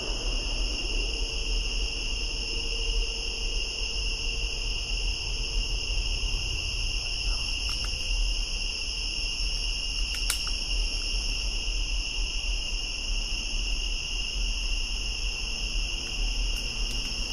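Night insects such as crickets trilling in a continuous chorus, a steady high-pitched drone at several pitches, over a low background rumble. A single faint click sounds about ten seconds in.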